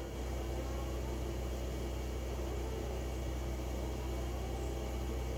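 Steady low hum with an even hiss underneath: room tone, with a machine running steadily in the background.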